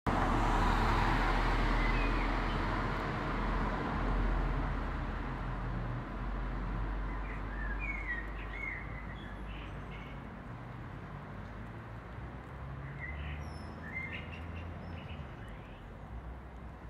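Outdoor ambience: a steady noisy rumble, loudest at first and slowly fading, with small birds chirping in short runs about two, eight and fourteen seconds in.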